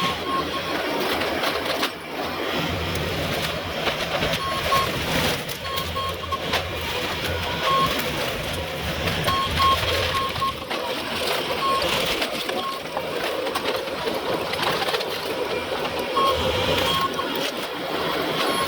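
Heavy machinery engine running under load with rough working noise, and short high beeps coming now and then at uneven spacing.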